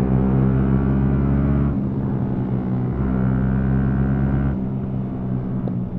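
Motorcycle engine pulling under throttle, with two short breaks in power about two seconds in and near the end, like gear changes.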